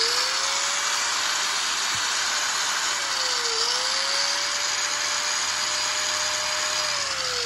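Hitachi 100 V, 720 W angle grinder switched on. The motor whines up to speed in the first second and runs at speed with a loud fan hiss, its pitch briefly dipping and recovering about halfway through. Near the end it is switched off and winds down with a falling whine.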